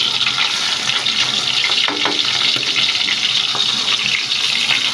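Hilsa fish steaks shallow-frying in hot mustard oil: a steady sizzle.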